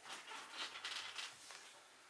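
Faint handling noise: a few soft rustles and scrapes that fade away near the end.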